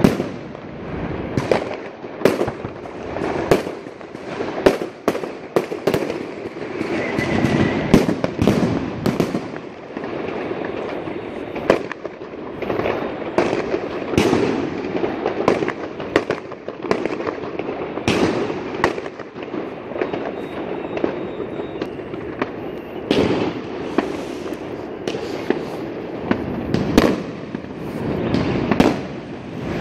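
Many fireworks going off: frequent sharp bangs at irregular intervals over a constant background of crackling and more distant explosions.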